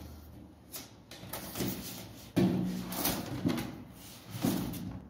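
Large sheets of white cardboard and pink paper being handled and shifted on a wooden floor: rustling and scraping, with a sudden loud slap of card about halfway through and a few smaller knocks after it.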